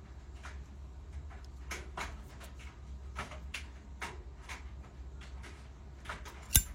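Small clicks and taps of a brass Zippo lighter being handled over a steady low hum, then one sharp, loud metallic click about six and a half seconds in as the lid is snapped open.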